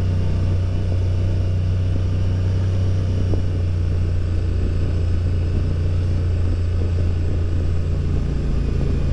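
Honda Transalp motorcycle engine running at a steady low drone in first gear on a steep downhill, holding the bike back.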